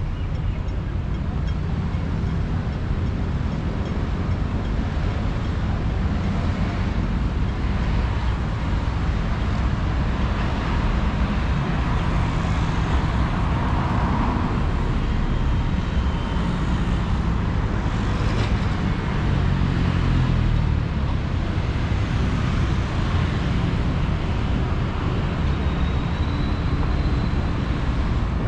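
Steady traffic noise from cars passing on a multi-lane city road.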